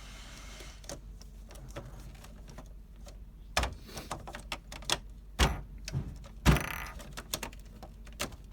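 Parts of a Lundby dollhouse room being fitted together by hand: a quiet stretch, then about halfway in a run of sharp knocks and clicks as panels are set in place, with a brief scrape as a piece slides into position.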